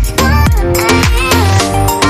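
Background electronic dance music with a steady, punchy beat and synth melody.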